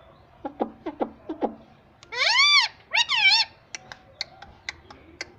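Pet parrot calling: a few quick falling chirps, then two loud drawn-out calls that rise and fall in pitch about two and three seconds in, followed by scattered short clicks.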